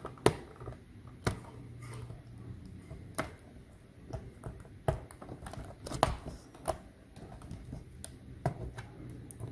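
Irregular clicks and taps of a screwdriver and plastic parts against a notebook's keyboard and case, as the tool presses in on a keyboard retaining clip to release it.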